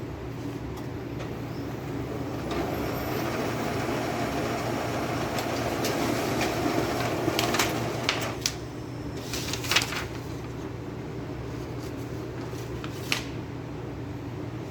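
HP LaserJet M603 laser printer running with a steady hum. A louder rushing mechanical noise swells from about two seconds in until about eight seconds, then several sharp clicks follow, the loudest about ten seconds in.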